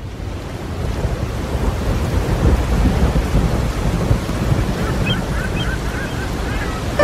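Stormy sea ambience: a deep, rumbling wash of waves and wind that swells up over the first second and then holds steady, with faint high bird cries joining about five seconds in.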